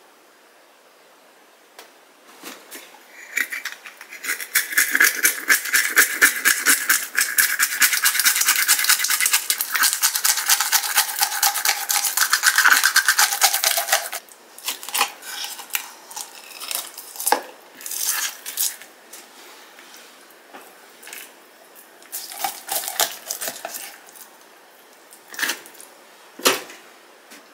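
Kitchen knife scraping the scales off a sea bream on a wooden cutting board: a dense run of rapid rasping strokes for about ten seconds, stopping suddenly, then scattered knife cuts and taps on the board.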